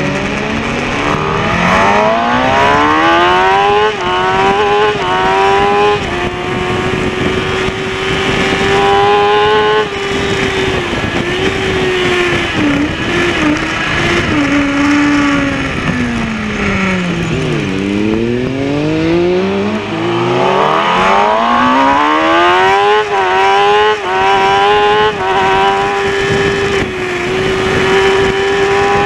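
Kawasaki ZX-6R's inline-four engine heard onboard at racing speed: it climbs hard through the gears in quick steps near the start and holds high revs, drops away steeply under braking with downshifts about two-thirds through, then climbs through the gears again and holds high revs to the end.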